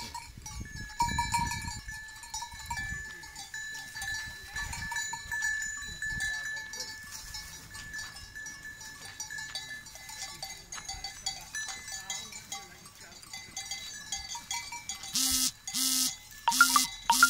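Bells on a grazing flock of sheep and goats ringing and tinkling steadily, then about four loud bleats in quick succession near the end.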